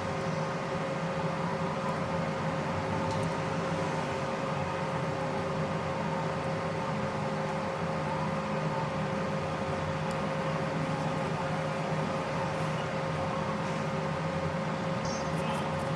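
Steady whirring of a small electric fan on a repair bench, with a constant hum tone and no change in speed.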